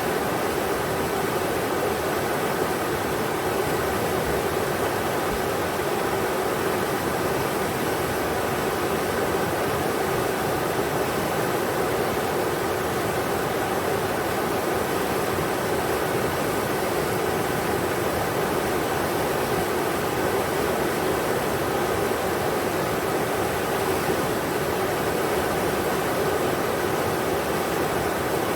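Englishman River rushing over rocks: a steady, even roar of flowing water with no change.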